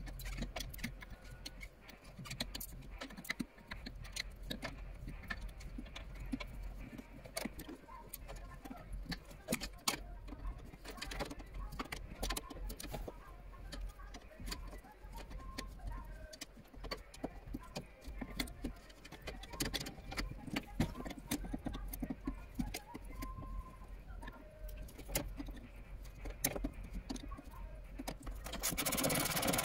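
Scattered metallic clicks and taps of an open-end spanner working the brake pipe fittings and bolts on a car's brake master cylinder. Near the end a louder, steady noise comes in.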